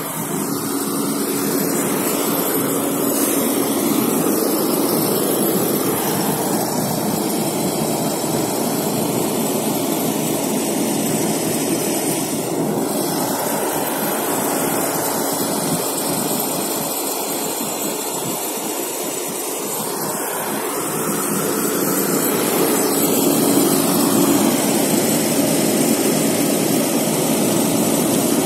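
Fendt tractor's diesel engine running steadily as the snow-chained tractor manoeuvres slowly, with the engine growing louder a little past two thirds of the way in.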